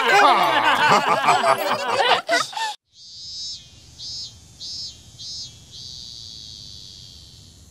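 A children's cartoon song with singing cuts off abruptly. Then comes an insect chirping, four short chirps about half a second apart and one long drawn-out buzz, over a faint low rumble.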